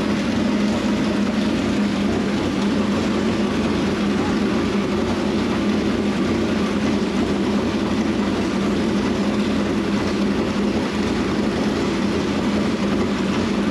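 Dirt late model race car's Ford engine running steadily at idle, started to circulate fluid through newly changed power steering lines.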